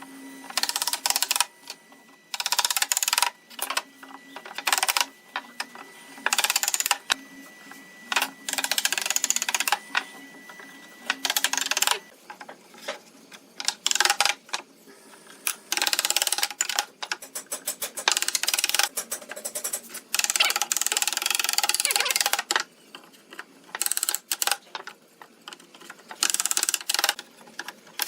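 Woodworking on timber in repeated strokes, each lasting about half a second to two seconds, with short pauses between them; a few strokes sound rapid and scraping. A faint steady high tone runs under the first part.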